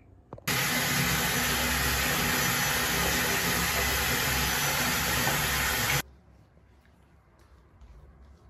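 Tap running into a bathroom sink with a steady rushing hiss. It starts suddenly about half a second in and cuts off abruptly about six seconds in.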